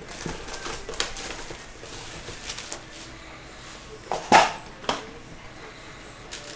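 Cardboard hobby box of trading cards being handled and opened: scattered light taps and scrapes, with the loudest, short sound just past four seconds in as the top flap is pulled open.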